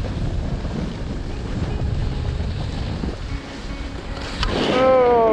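Wind buffeting the action camera's microphone at skiing speed, a steady low rush. About four and a half seconds in, a woman lets out a high cry that falls in pitch as she loses her balance and falls.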